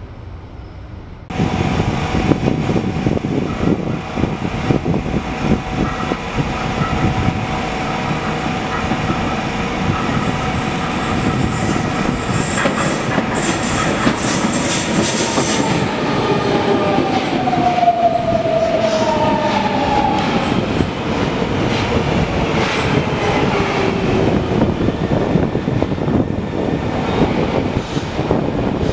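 Brasília Metro electric train running through a station, with wheels clattering and squealing on the rails. The sound starts suddenly about a second in, and in the second half a whine falls in pitch.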